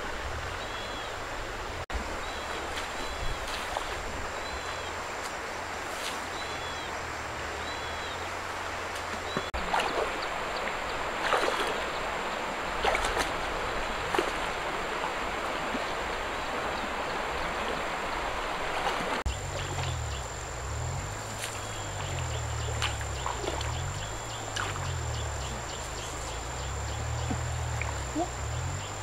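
Shallow river water running, with a thin high-pitched whine throughout and a few bird chirps in the first several seconds. Later come occasional splashes and sloshes of water as a person wades.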